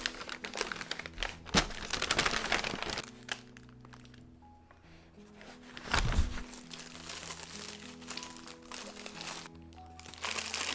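Paper takeaway bag and burger wrapper crinkling and rustling as they are handled and opened, in several stretches with a loud rustle about six seconds in, over soft background music.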